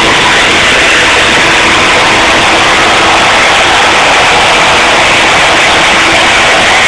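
Live rock concert sound in an arena, recorded so loud that it overloads the phone's microphone into a steady, distorted roar, with the band's music and the crowd blurred together and only faint held notes showing through.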